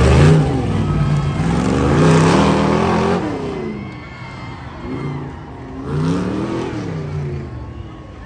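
Tough truck race truck's engine revving up and down several times, loudest in the first three seconds, then two quieter revs.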